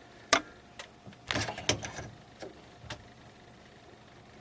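Sharp clicks and scraping from handling a CPU heatsink and its spring retention clip while trying to latch it over a Pentium III: one sharp click, a cluster of clicks and scrapes about a second and a half in, then a few fainter clicks.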